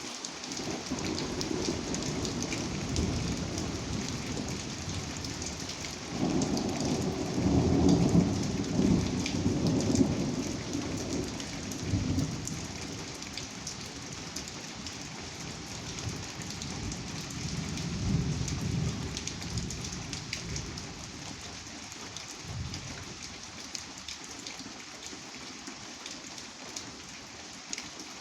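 Steady rain pattering, with a long roll of thunder rumbling under it that grows loudest about a quarter of the way in, swells again past the middle and dies away well before the end.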